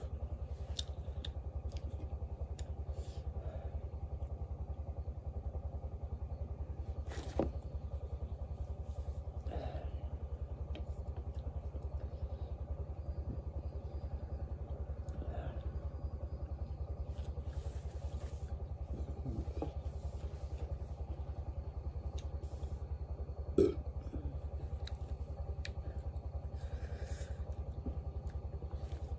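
A small engine running steadily with a fast, even low throb, under scattered light clicks and two sharper knocks of chopsticks and bowl while eating.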